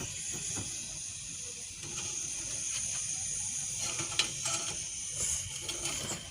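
Open fire burning with a steady high hiss, broken by scattered crackles, clicks and scrapes.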